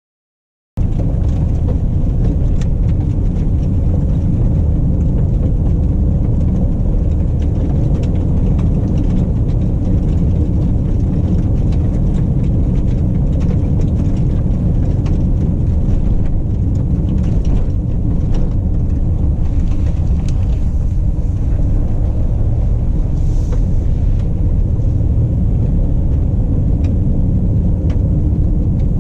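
Mercedes-Benz GLE Coupe driving: a steady low rumble of engine and road noise that cuts in abruptly just under a second in.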